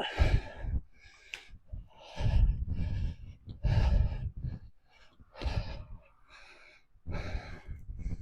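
A cyclist breathing hard while riding, about five heavy breaths close to the microphone, each one buffeting it with a low rumble.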